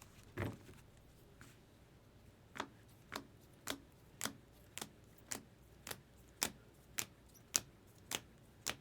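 Trading cards in hard plastic top loaders being handled, giving a sharp click about twice a second in an even run that starts a few seconds in.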